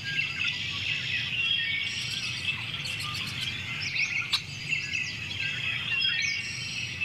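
Many birds chirping and singing at once in a dense chorus, with a single sharp click about four seconds in.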